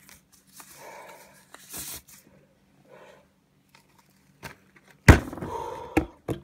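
Rustling and handling noise as a disposable face mask and blue plastic gloves are pulled off, with a sudden loud bump and rustle about five seconds in.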